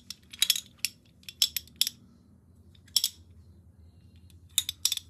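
Metal parts of a Polar Terminator centrifugal clutch clicking and clinking as they are handled and the clutch can is fitted back over the spider: a quick run of clicks in the first two seconds, one about three seconds in, and a few more near the end, over a faint low steady hum.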